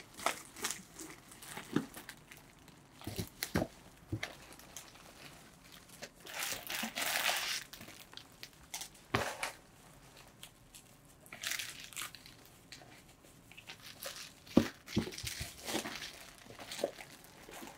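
Clear plastic bags crinkling and rustling as packaged items are rummaged through in a cardboard shipping box, with now and then a sharp knock of packages being moved.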